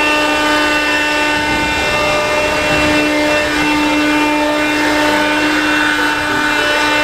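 Wheeled mini excavator working: its diesel engine and hydraulics run with a steady hum while it swings a bucket of soil over and tips it into a tracked dumper.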